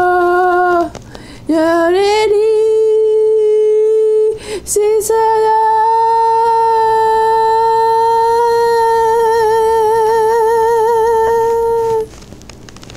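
A high voice singing unaccompanied in long held notes. The last note is held about seven seconds, its vibrato widening toward the end before it stops.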